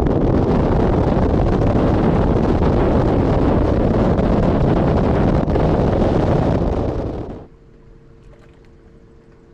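Bass boat running at speed: loud wind buffeting the microphone over the rush of the hull through the water. It cuts off abruptly about seven seconds in, leaving a quiet background with a faint steady hum.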